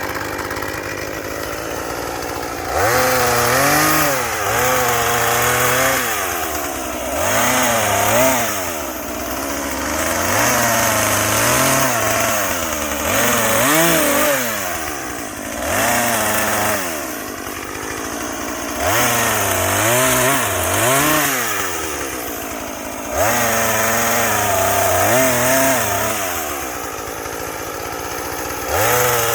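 Chainsaw idling for about three seconds, then revved again and again while cutting, its engine pitch dipping and rising under load, with short drops back to idle between cuts.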